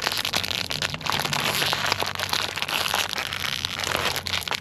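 Cornetto ice cream wrapper being unwrapped: a dense, continuous crinkling and crackling of the paper wrapper handled close to the microphone.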